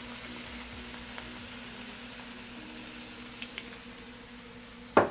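Sliced bell peppers and onion frying in oil in a skillet, a steady sizzle with a low steady hum underneath. A sharp knock near the end.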